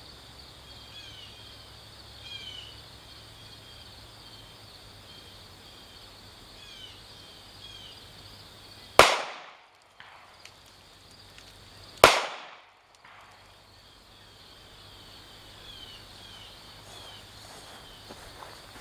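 Two .45 ACP pistol shots from a DoubleTap two-barrel pocket pistol, about three seconds apart, each a sharp crack with a short decay. Faint chirping runs underneath.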